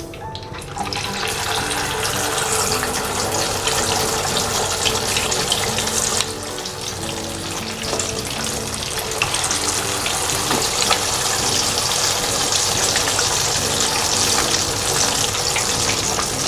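Marinated, starch-coated chicken pieces deep-frying in hot oil in a wok, a dense sizzle full of fine crackles as more pieces are added. The sizzle swells about a second in and grows again in the second half.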